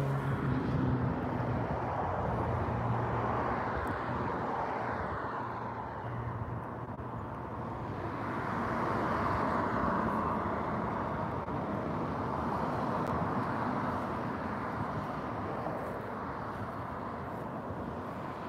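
Road traffic ambience: a steady rush of vehicles passing on a nearby road, swelling and fading a couple of times.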